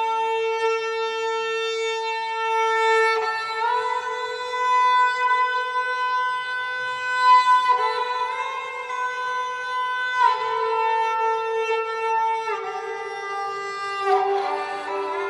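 An esraj, a bowed Indian string instrument, playing long sustained notes that slide smoothly up and down between pitches, with the pitch changing every two to four seconds.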